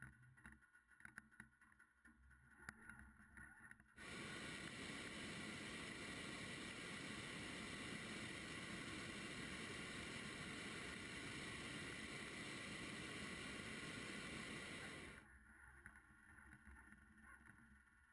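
Hot air balloon's propane burner firing: a steady, loud rushing blast that starts suddenly about four seconds in, holds for about eleven seconds and cuts off sharply. Before and after it, only faint wind with a few small clicks.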